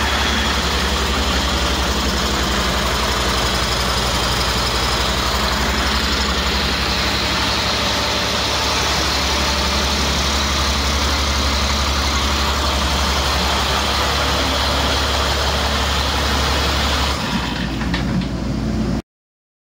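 2008 Caterpillar C7 ACERT inline-six turbo diesel running steadily on an engine test stand. Its low drone drops away near the end, then the sound cuts off abruptly.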